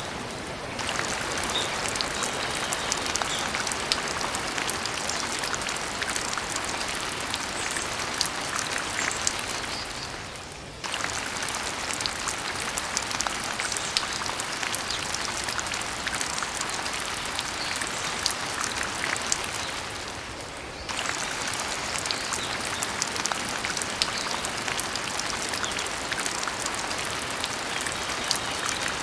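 Steady falling-water noise like rain, dense with small sharp drop ticks. It briefly dips and resumes about 10 and 20 seconds in.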